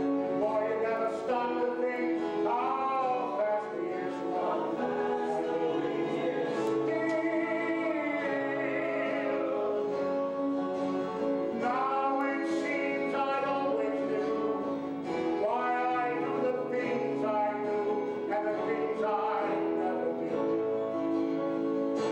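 A man singing a melody in long held notes over instrumental accompaniment.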